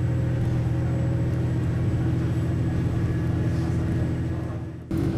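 Diesel railcar running along the line, heard from inside the car: a steady engine drone with a low hum. Near the end it fades briefly, then cuts off and returns abruptly with a slightly higher hum.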